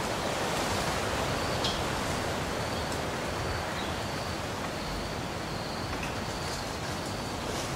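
Steady natural outdoor ambience: an even hiss with a faint high tone pulsing on and off and a few short, faint chirps.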